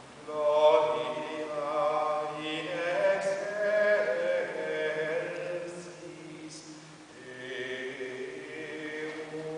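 Mixed-voice a cappella ensemble singing Gregorian chant. A phrase starts about half a second in, eases off around two-thirds of the way through, and a new phrase begins shortly after.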